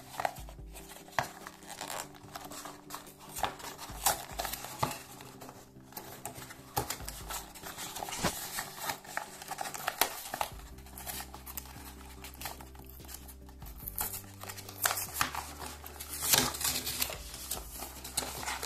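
Cardboard packaging and plastic artificial plants being handled: irregular rustling, scraping and sharp taps as the cardboard sleeve is tilted and opened around the small plastic pots.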